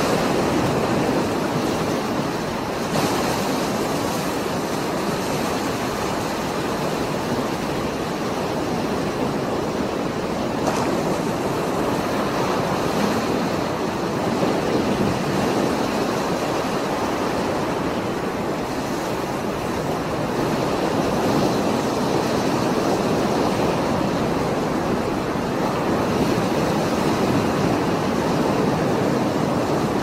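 Heavy surf of a rough, stormy sea: waves breaking and foaming in a continuous rush of churning water, swelling a little louder in the second half.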